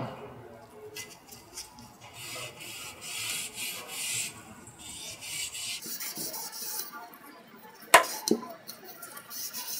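Scotch-Brite pad, worked with a wooden dowel, scrubbing residue out of the spiral tip-seal groove of a scroll pump's anodized housing: a faint, dry rasping rub in strokes. Two sharp knocks about eight seconds in.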